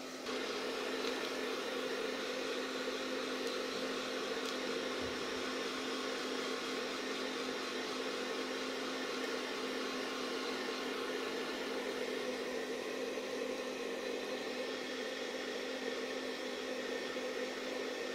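Electric hair dryer running steadily, a constant hum under an even rush of air, drying a baby monkey's fur after its bath.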